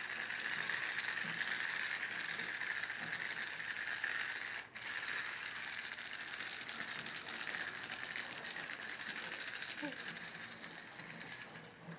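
Clockwork motor of a wind-up plush toy mouse running, a dense whirring rattle. It breaks off briefly about five seconds in, then slowly fades as the spring runs down, dying away near the end.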